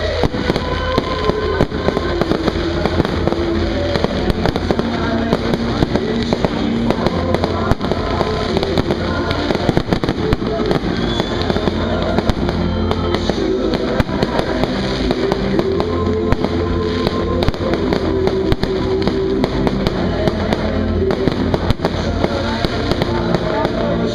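Aerial fireworks going off in a rapid, unbroken string of bangs and crackles, with music playing at the same time.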